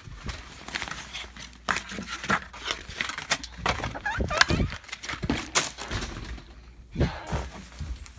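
Rustling and knocking from a phone being handled and carried, with a person's voice in between but no clear words.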